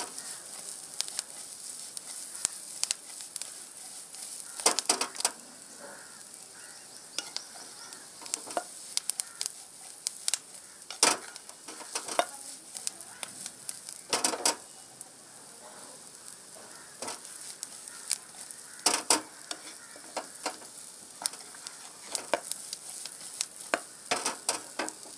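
Chicken pieces sizzling as they are stir-fried in a non-stick frying pan, with a wooden spatula scraping and tapping against the pan every few seconds.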